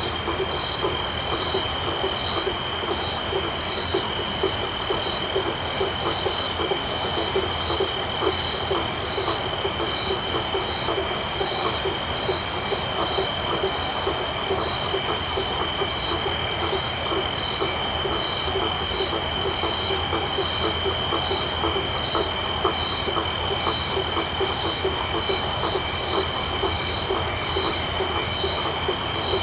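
Tropical night chorus of crickets and frogs: insects trilling on steady high notes with a pulsed call repeating at an even pace, over frogs calling in a dense, rapid chatter lower down. The whole chorus holds steady without a break.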